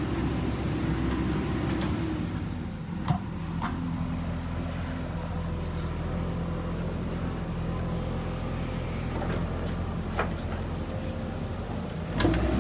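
JCB backhoe loader's diesel engine running steadily under work, with a few sharp clanks, and the engine picking up louder near the end.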